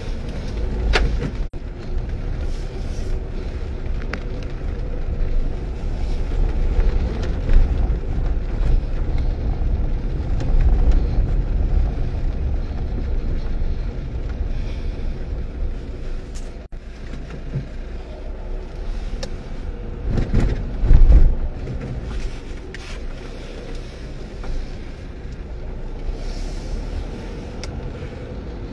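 Low, steady road and engine rumble inside a moving car's cabin, with a louder swell of rumble about twenty seconds in.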